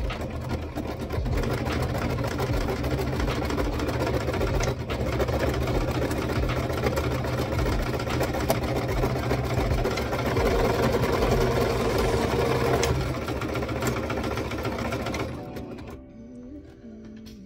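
Singer sewing machine running steadily as it stitches a curly hair weft, stopping near the end.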